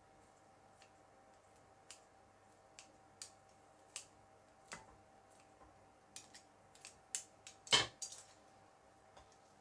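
Metal kitchen tongs clicking and tapping against a ceramic bowl and a plate as pieces of grilled pork are lifted and set down: a scattering of light clicks, with the loudest clatter near the end.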